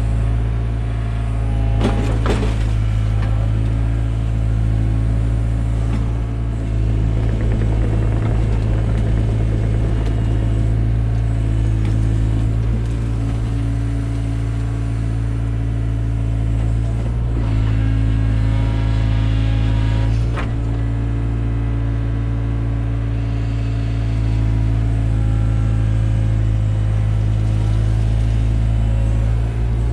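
Takeuchi TB175 excavator's diesel engine running steadily under hydraulic load while it digs, its drone shifting a little in pitch. Two sharp knocks of the bucket or linkage stand out, about 2 seconds in and near the middle, with some scraping between them.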